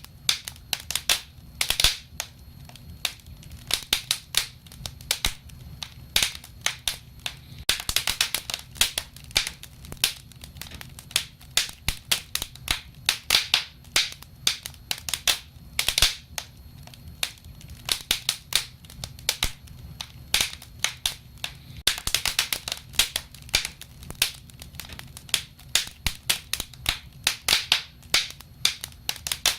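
Wood fire crackling, with many sharp irregular pops and snaps over a low, soft rumble of burning.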